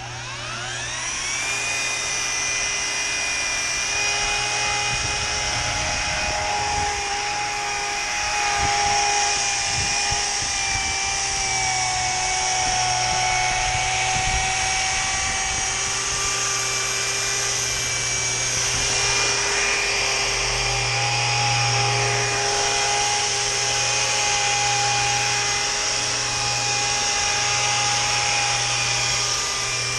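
Handheld rotary glass polisher with a round pad spinning up about a second in, then running steadily with a whine as it buffs stains off window glass with polish. Its pitch sags slightly at times as the pad draws down under load against the glass.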